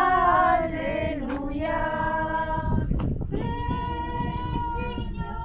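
Hymn sung by a choir with female voices to the fore, in phrases of long held notes with a short break between phrases about three seconds in.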